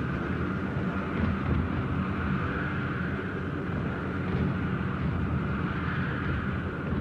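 Steady drone of a piston-engined bomber's engines heard from inside the fuselage, a dense low rumble with a rushing hiss above it that swells and eases slightly.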